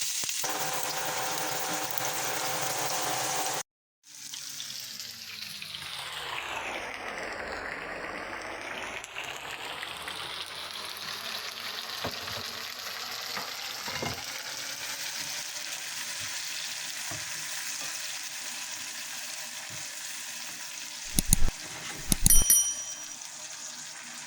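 Food frying in hot oil in a skillet, a steady sizzle, broken by a short cut about four seconds in. A few utensil knocks come around the middle and again near the end.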